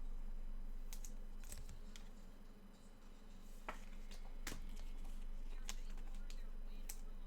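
Trading cards being handled and sorted on a table: scattered, irregular light clicks and taps, the strongest about four and a half seconds in, over a low steady hum.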